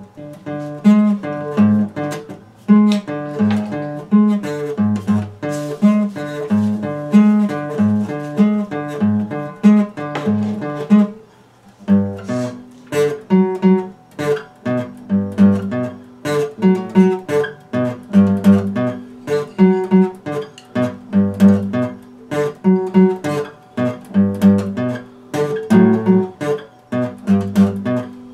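Acoustic guitar fingerpicked in a steady pattern of bass notes and chords, with a short break about halfway through before the pattern picks up again.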